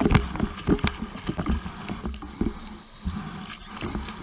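Sea water splashing and sloshing in irregular bursts as a person swims or wades along, with low rumbling knocks of water against the microphone.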